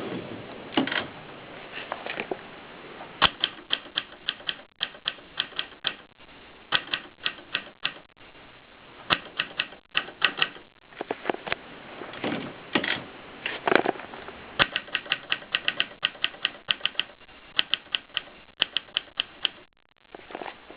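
Adler Tippa portable manual typewriter being typed on: runs of quick key strikes, several a second, broken by short pauses, with a few heavier strikes among them.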